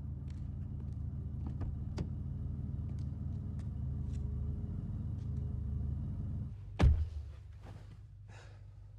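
A car engine idling with a steady low rumble, with a few sharp clicks and taps over it. About seven seconds in, a car door shuts with a heavy thud. After that the idle is heard more quietly, as if from inside the closed cabin.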